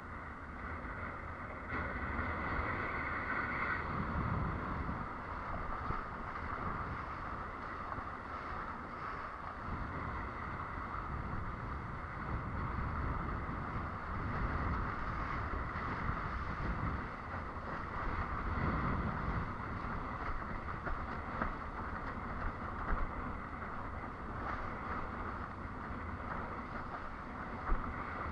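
Continuous rush of wind buffeting the microphone and water splashing past a windsurf board under way, with a few brief sharper knocks near the end.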